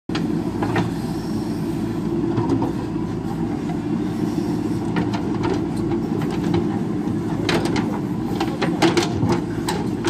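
JCB 3DX backhoe loader's diesel engine running steadily under load as the backhoe digs, with scattered sharp knocks and clanks from the bucket working through stony earth.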